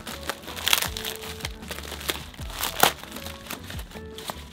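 Plastic packaging crinkling and crackling in irregular snaps as a small clear plastic package with a very sticky glued seal is pulled open by hand, the sharpest crackle about three seconds in. Soft background music runs underneath.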